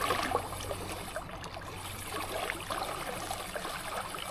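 Small waves lapping and trickling against the rocks at the water's edge, an irregular wash with many small splashy ticks.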